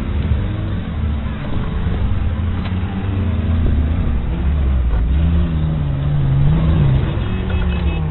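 Off-road cars' engines revving hard as they race past close by on dry dirt. The engine pitch rises and falls with the throttle, dipping about five seconds in and climbing again near the end, loudest just before that.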